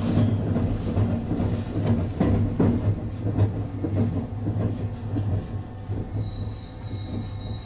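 JR West 221 series electric train running and slowing as it nears a station stop: a low rolling hum with wheel clicks over the rail, growing steadily quieter. A thin high steady tone joins near the end.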